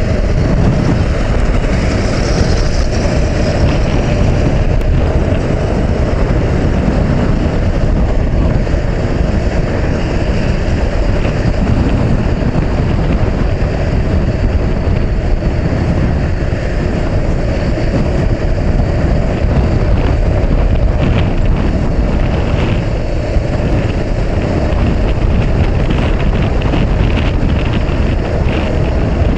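Steady wind noise buffeting an action camera's microphone on a moving motorcycle, over the running of a Honda CB500X's parallel-twin engine.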